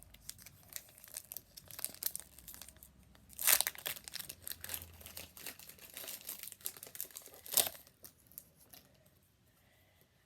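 Foil Pokémon card booster pack wrapper crinkling in the hands and being torn open, with two louder rips about three and a half and seven and a half seconds in; the crackling dies away near the end.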